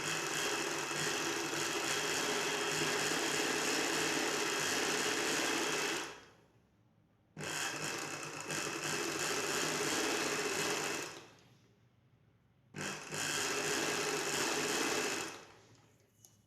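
Sewing machine stitching a seam in three runs: about six seconds, then about four, then about three, each winding down, with short pauses between.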